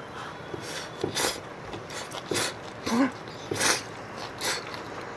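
A person slurping instant ramyeon noodles off chopsticks in a run of short slurps, about five or six, the loudest a little over a second in and again about three and a half seconds in.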